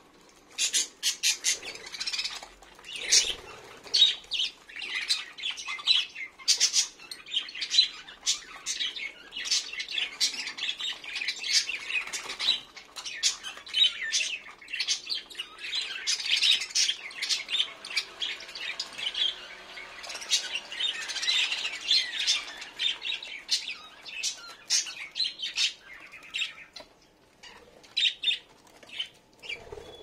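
A flock of caged budgerigars chattering: a dense stream of short, rapid chirps and squawks from many birds at once, thinning out near the end.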